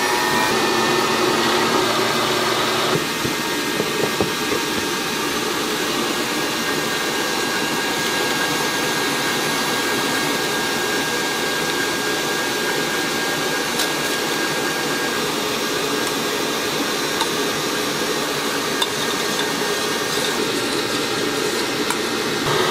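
Electric stand mixer running steadily at high speed, its balloon whisk whipping eggs in a stainless steel bowl: a continuous motor whir mixed with the whisk's rushing noise.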